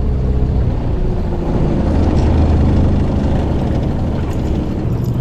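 A small fishing boat's outboard motor running steadily at a low, even pitch.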